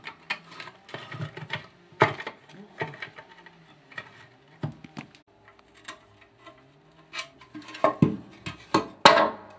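Oil pan of a Mercedes M102 engine being pulled off the block and set down on a concrete floor: a string of metal clanks and scrapes, with the two loudest knocks near the end.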